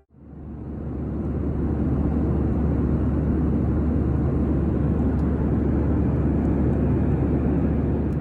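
Steady low rumble of vehicle engine and cabin noise, fading in over the first two seconds.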